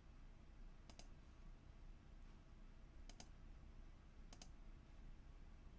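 Computer mouse clicking faintly three times, each a quick double click, against near-silent room tone.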